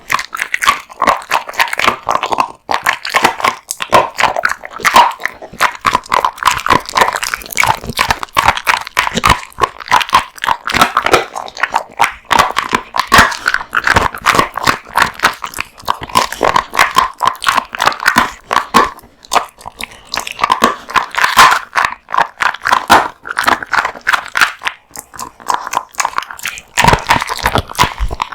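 A dog chewing raw meat and bones, with dense, irregular crunching and cracking and wet biting, broken by brief pauses.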